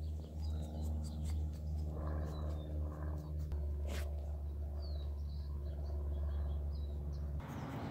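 A steady low mechanical hum with short high bird chirps now and then. The hum stops abruptly near the end, giving way to a hiss.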